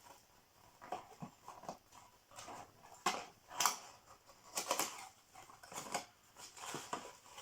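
Hands opening a small cardboard advent calendar box and its packaging: irregular rustling and light clicks and taps.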